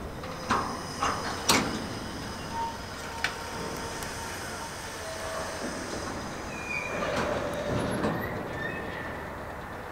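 A slow freight train of railway tank wagons rolling along the track: a steady rolling noise with several sharp knocks and clanks in the first three seconds, a louder swell about seven seconds in, and short high squeals in the second half.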